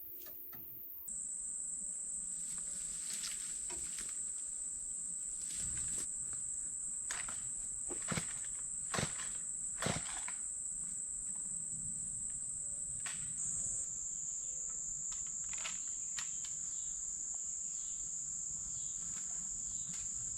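Insects chirring in a steady, high-pitched drone that steps slightly lower past the middle, with scattered crackles and snaps; a few louder ones come between about eight and ten seconds in.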